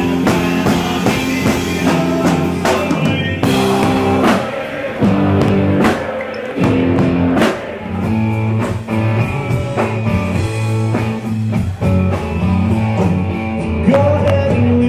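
Live rock band playing loudly: electric guitar and drum kit with a singer, the drums hitting at a steady beat.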